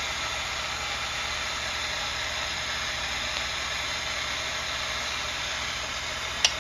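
Steady hiss with a low hum underneath, and one sharp click near the end.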